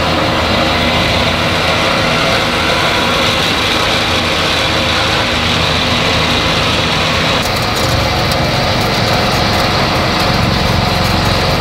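Flatbed tow truck's engine running steadily while the motorcycle is unloaded down the tilted bed. The sound shifts about seven and a half seconds in.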